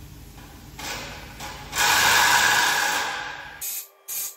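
Harness tape being peeled and unwound from a vehicle wiring loom: a long rasping rip, then two short rips near the end.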